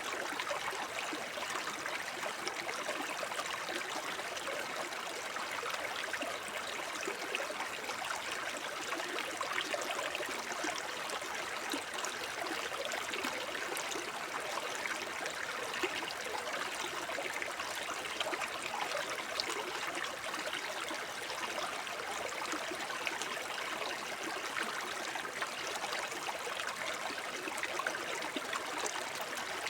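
Small forest brook babbling over stones: a steady, unbroken rush of running water with fine trickling and gurgling detail.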